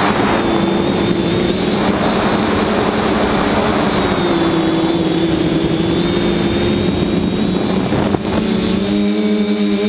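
Multirotor drone's electric motors and propellers whirring in flight, a steady hum with a high whine over them, heard from the drone's own onboard camera with heavy wind rush on the microphone. A little past eight seconds in the sound dips briefly, and after that the wind rush eases and the motor tones stand out more clearly.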